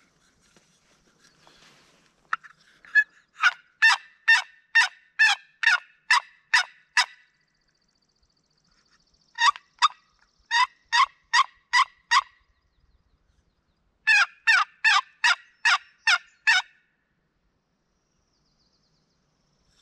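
Turkey yelps in three runs of seven to nine notes each, about two and a half notes a second, with each note dropping in pitch.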